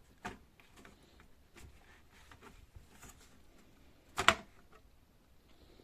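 Faint clicks and taps from handling a laptop's plastic case parts, with one sharp click or knock about four seconds in.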